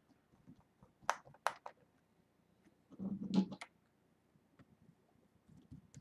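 Light clicks and taps of a small precision screwdriver working the screws out of a Dell Latitude laptop's bottom cover, with the loose screws being handled. There are three clicks in quick succession about a second in, a brief muffled handling sound around three seconds in, and faint ticks near the end.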